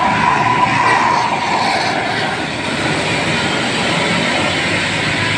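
Large tour bus passing close by, a steady rush of engine and road noise; a held horn tone fades out in the first second and a half.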